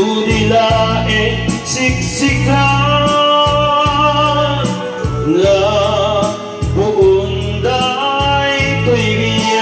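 A man singing a slow love song into a microphone over a karaoke backing track with bass and drums.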